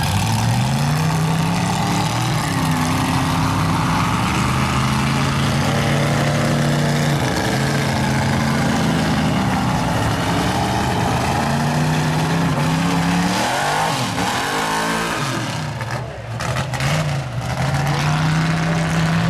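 Mud truck engine running at high revs under load, its pitch holding steady with small steps for most of the stretch. About two-thirds of the way in the revs rise and fall quickly several times, dip briefly, then climb back to a steady high pitch.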